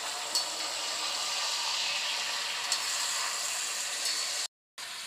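Sliced raw potatoes sizzling steadily in hot oil on a tawa, with a couple of light clicks from the slotted spatula stirring them. The sound drops out for a moment near the end.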